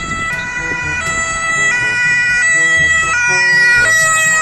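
Ambulance two-tone siren switching back and forth between a high and a low note, each held a little under a second, growing louder as the ambulance approaches.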